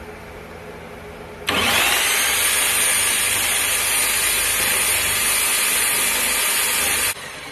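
Bauer 1695E-B 13-amp corded right-angle drill starts about a second and a half in, winds up quickly and runs steadily under load, boring through wood framing. It stops suddenly near the end.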